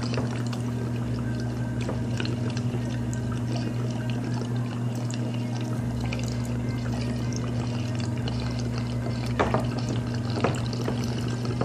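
Water bubbling steadily inside a small glass dab rig as a long hit is drawn through it, over a steady low hum, with a couple of brief louder sounds near the end.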